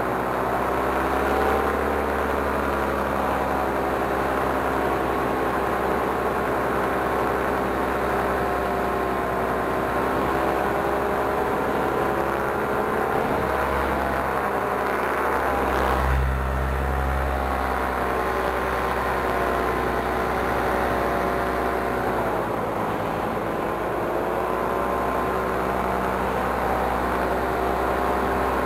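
Paramotor engine and propeller running steadily in flight, its pitch dipping and climbing back a few times.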